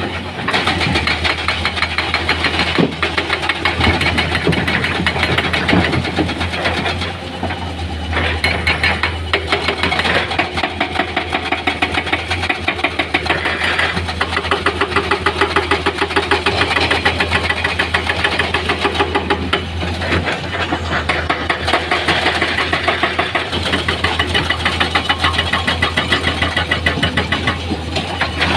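Diesel engine of heavy construction machinery running steadily, with a rapid, regular pulsing beat.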